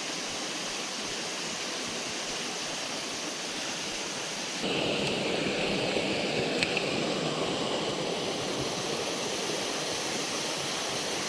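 Steady rush of a mountain stream with waterfalls pouring into pools. About halfway through, the rushing gets louder and fuller.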